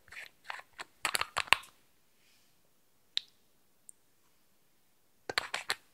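A glass nail polish bottle being handled and opened: a quick run of sharp clicks from the cap and brush against the glass neck, a single click a little after three seconds, and another short run of clicks near the end.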